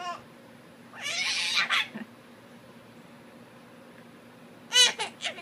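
Domestic cat meowing: one long meow about a second in, then short high cries near the end.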